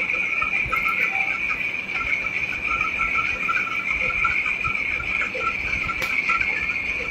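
Chorus of calling insects: one steady, high-pitched trill, with a second, lower, irregular chirping under it.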